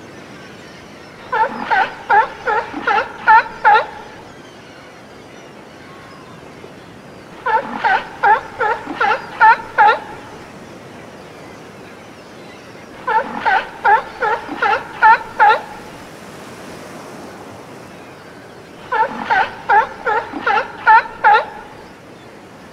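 Seal barking: four bouts of quick, repeated barks about six seconds apart, each bout of seven or eight calls in two to three seconds, over a faint steady hiss.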